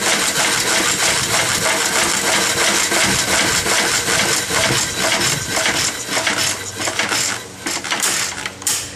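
McCormick-Deering Model M 1.5 hp throttle-governed single-cylinder engine running with a rapid metallic clatter, then slowing and fading near the end as it is shut off.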